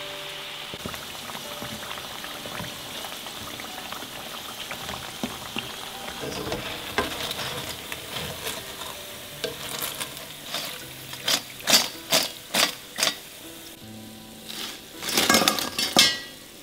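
Wontons deep-frying in hot oil: a steady sizzle, with a wooden spatula stirring in the pan. Over the last third, a run of sharp clacks and crackles rises above the sizzle, as the fried wontons are handled with a steel skimmer. Soft background music plays underneath.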